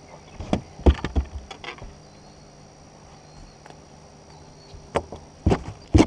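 Irregular knocks and thumps from handling a bass just lifted out of a landing net in the boat: a cluster about a second in, then the loudest bumps near the end as the fish is pushed against the camera.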